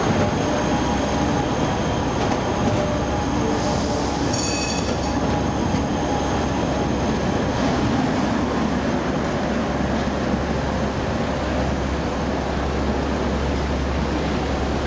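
Trams rolling along curved, cobble-set track: a Tatra T3-type tram approaching, then a Škoda 14T low-floor articulated tram passing close with a steady rumble. A brief high tone about four to five seconds in is typical of wheel squeal on the curve.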